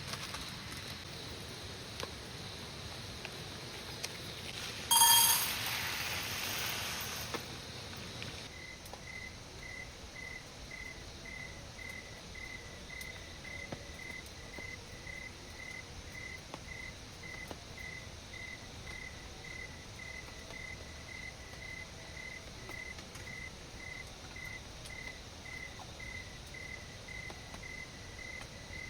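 An insect chirping in a steady, even rhythm of about two high chirps a second, starting about eight seconds in, over constant outdoor background hiss. About five seconds in, a single short, loud, shrill sound is followed by a couple of seconds of brighter hiss.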